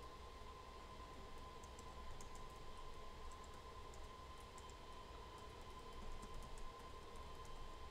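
Computer keyboard typing, faint: light, irregular key clicks over a steady faint tone and low hum.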